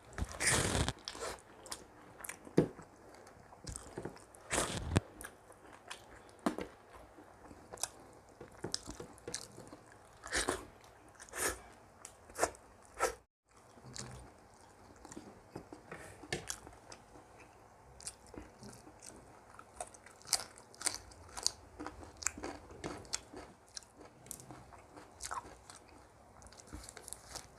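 A person chewing and crunching mouthfuls of food, with irregular sharp crunches and bites. The sound cuts out completely for an instant about 13 seconds in.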